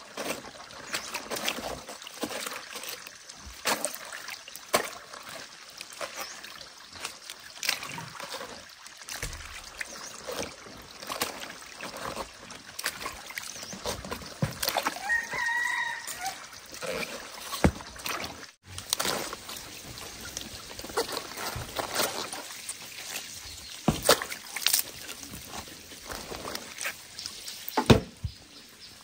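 Irregular clicks and knocks with some trickling water, and a rooster crowing once about fifteen seconds in.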